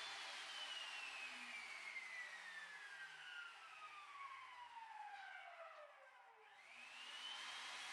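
Electric power tool motor whining as it coasts down: the pitch falls slowly and steadily for about six seconds, then the motor is switched back on and the whine climbs quickly back to full speed near the end.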